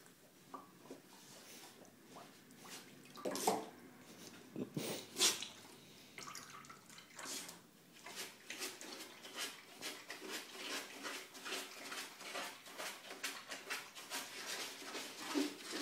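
A dog splashing its muzzle in shallow water in a foam cooler, going after small fish: irregular slaps and drips, with two louder splashes about three and five seconds in, then a quicker run of small splashes.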